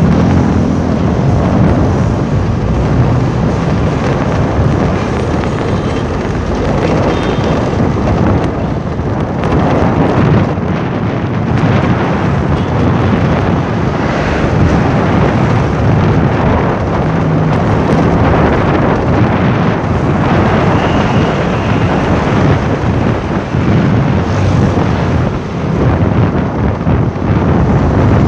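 Wind buffeting the microphone over the rumble of a moving vehicle and the engines of motorcycle traffic around it, a loud, uneven rumble throughout.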